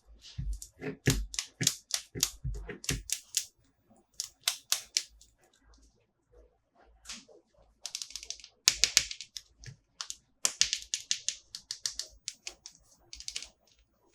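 Hands handling toy packaging and plastic figures: a run of sharp clicks and taps, with denser crinkling crackles about eight seconds in and again from about ten seconds in.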